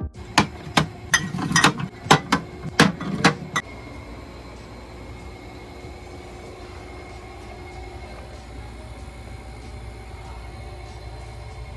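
Drink bottles and cans knocking and clinking as they are set into a mini fridge: a quick run of about ten knocks in the first three and a half seconds, then a steady low hum.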